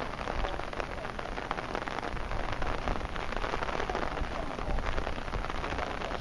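Heavy typhoon rain falling steadily, countless drops pattering close to the microphone over a low rumble.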